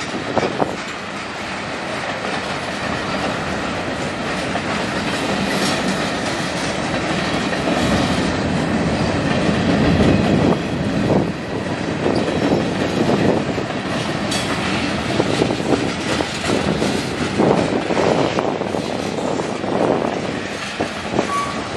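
Canadian National manifest freight train's cars rolling past: a steady rumble of steel wheels on rail, with wheels clacking over rail joints.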